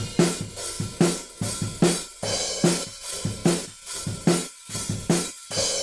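Drum loop with kick, snare and hi-hat playing a steady beat of about two to three hits a second. The hi-hat runs through Sonible Smart:Comp 2 with external sidechain ducking, so its level dips in time with the sidechain hits.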